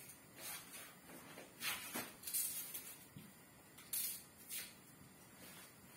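Faint, irregular rustles and light scrapes from things being handled at a kitchen counter, about eight short sounds at uneven intervals.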